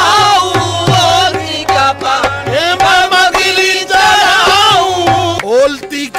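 Qawwali music: a singing voice holding and bending long notes, with tabla drumming underneath.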